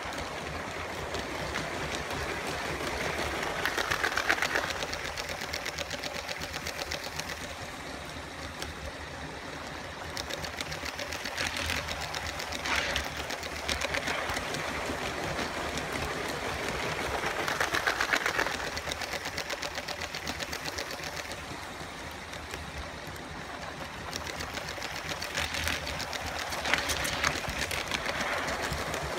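A LEGO train driven by a Power Functions motor running on plastic LEGO track: a continuous rapid clatter of wheels over the rail joints with the motor's whir, swelling four times as the train passes close.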